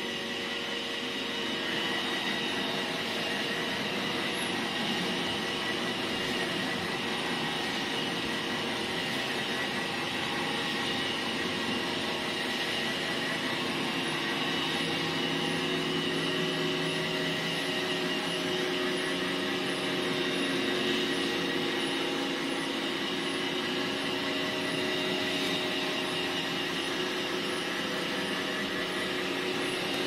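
iRobot Roomba e5 robot vacuum running in spot-clean mode: its suction fan and brushes give a steady whir with several constant whining tones above it.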